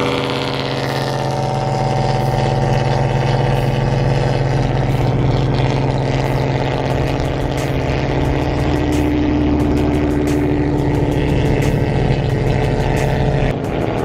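Car engine running at a steady cruise, a constant drone with road noise.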